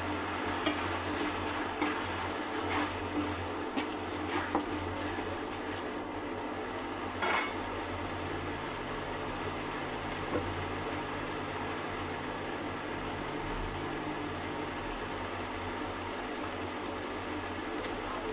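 A cooking utensil clinking and scraping against a pot several times in the first half, then less often, over a steady low hiss and hum.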